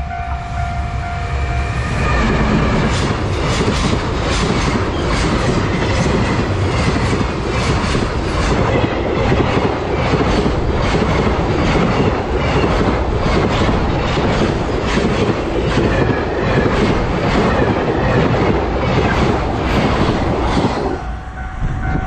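JR Freight EF210 electric locomotive and a long train of container flatcars passing close by, the wheels clattering rhythmically over the rail joints. A level-crossing warning bell rings steadily at the start and is heard again near the end as the train noise drops away.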